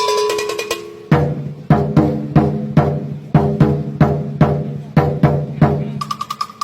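Lion dance drum beaten in a steady rhythm, about two strikes a second, each with a deep boom and some ringing, after a second of a pitched tune ends. Near the end a pulsing high tone comes in over the drumming.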